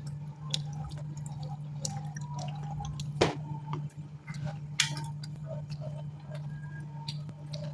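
Wet, close-up eating sounds of soft raw tofu still wet from its soaking water: small squishes, mouth clicks and drips over a steady low hum. A sharp click about three seconds in is the loudest sound, with a smaller one a second and a half later.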